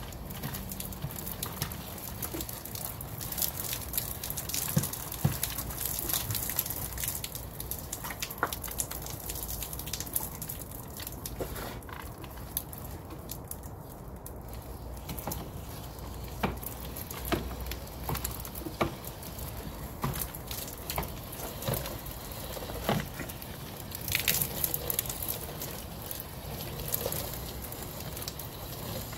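Water from a water-fed pole rinsing a fascia board as the brush scrubs, water falling and splashing. It is a steady hiss with many irregular small ticks and splashes.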